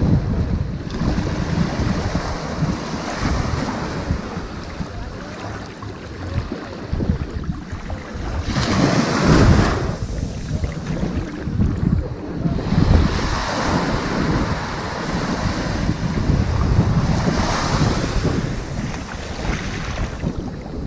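Ocean waves washing onto a sand beach, surging in and drawing back, with the biggest surges about 9, 13 and 17 seconds in. A low rumble of wind on the microphone runs under them.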